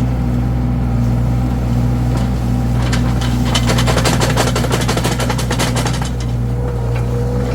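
Mini skid steer's engine running steadily under work. Midway through, a fast run of sharp clicks and cracks goes on for about two and a half seconds.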